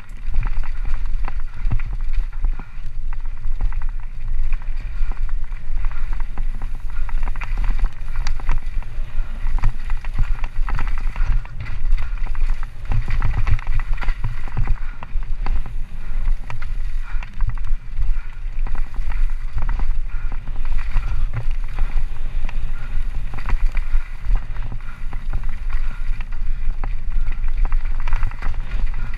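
Orange Alpine 160 mountain bike ridden fast down a dirt trail: constant wind rumble on the helmet microphone, tyres running over dirt and roots, and frequent knocks and rattles from the bike over bumps.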